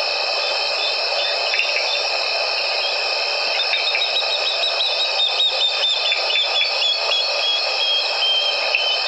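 Evening chorus of insects: several steady, high-pitched trills at once, joined from about three and a half seconds in by a run of short, sharper chirps.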